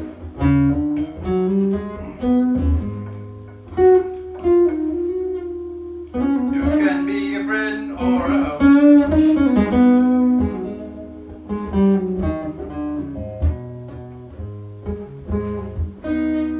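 Guitar jam: single picked notes and short phrases ringing out over steady low notes, the playing growing fuller and louder for a few seconds in the middle.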